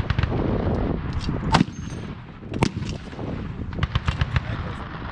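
Single shots from M2 .50-caliber machine guns on a firing range: two loud, sharp reports about a second apart, with fainter shots around them.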